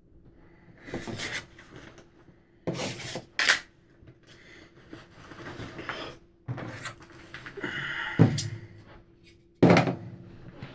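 Handling noises: clothing rustling and small objects being picked up from a desk and moved, in several separate bursts of rustling and knocking.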